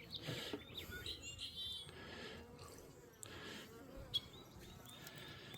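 Faint buzzing of a clustered honeybee swarm, with a short bird chirp about a second and a half in.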